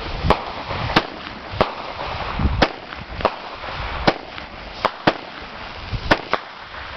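Consumer fireworks going off: about a dozen sharp cracks and bangs at uneven intervals over a steady hiss, with a couple of deeper booms near the start and about two and a half seconds in.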